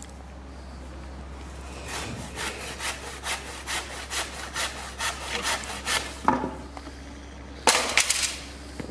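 Hand saw cutting through a wooden branch: a quick, even run of push-and-pull strokes for about four seconds. A knock follows, then a brief loud clatter of wood dropping on stone paving near the end.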